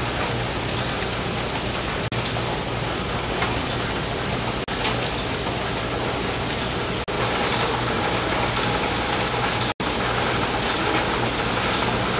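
Reel-to-pack converter, a multi-colour web printing press for continuous business forms, running: a dense, steady mechanical rush over a low hum. It cuts out briefly several times and grows a little brighter and louder partway through.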